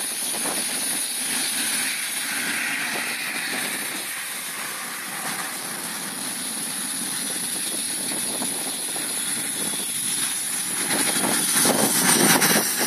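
BAE Hawk T1 jets' Adour turbofan engines whining at taxi power as the jets roll past, a steady high whine over a rushing rumble. The sound swells near the end as the nearer jet passes closest.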